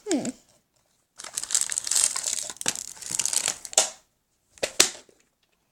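L.O.L. Surprise Under Wraps packaging crinkling as it is handled and opened, for about three seconds, followed by a couple of sharp clicks.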